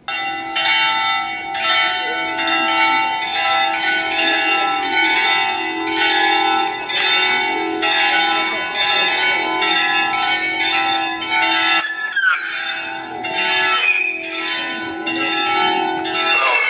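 Church bells pealing, beginning suddenly and struck in quick succession about twice a second, with a brief break a little after the middle.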